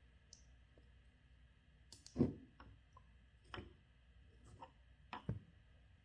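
A handful of faint, scattered clicks and light knocks, the strongest about two seconds in, from a glass bottle of sliced onions and honey being handled.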